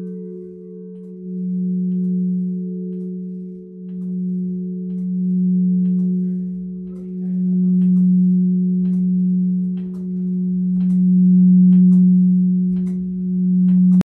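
Bronze church bell humming after being rung: a deep, sustained ringing tone that swells and fades every two to three seconds. Light clicks and knocks come in the second half.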